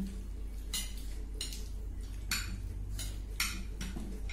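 Eating utensils clinking and scraping against a dish about five times, in short separate strokes over a faint steady low hum.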